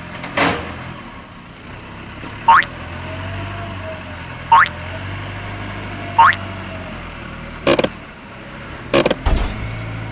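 Skid-steer loader engine running steadily, with a short rising squeak that repeats about every two seconds. A few sharp knocks come near the end.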